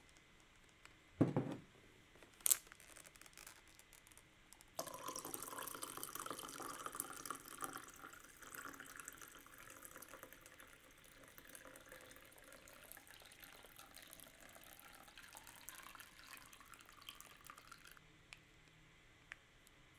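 Cooking water pouring out of an instant yakisoba tray through its lid into a cup, a steady splashing pour that starts abruptly, is strongest at first and tapers off before stopping. Before the pour come two sharp clicks.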